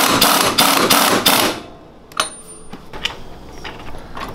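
Pneumatic impact wrench hammering in about three short bursts, running the front wheel's nut down tight on the go-kart hub. It stops about a second and a half in, followed by a sharp click and a few light metal clanks.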